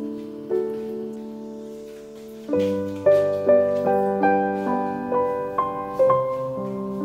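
Background piano music: slow held chords, then from about two and a half seconds in a melody of single notes struck about two a second.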